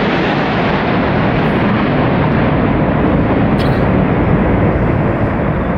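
Formation of military aircraft flying over, a loud steady engine noise that swells slightly and then eases near the end.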